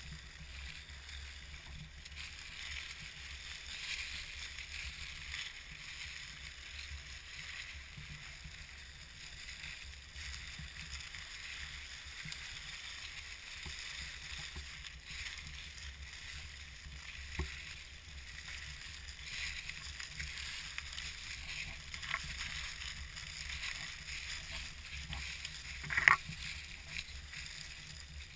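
Axial SCX10 scale RC crawler driving over dry leaves: a steady crackling rustle of leaves under its tyres over a low rumble, with a few light clicks and one sharp knock near the end.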